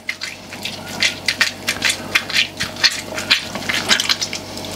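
An orange half squeezed and worked around by hand, the pulp squelching in quick irregular squishes as its juice drips into a stainless steel saucepan.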